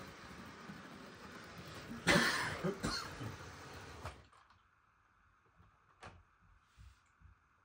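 Model train running along the track with a steady whirring noise that stops suddenly about four seconds in, leaving only a faint hum and a few light clicks. A loud cough breaks in about two seconds in, with a second, smaller one just after.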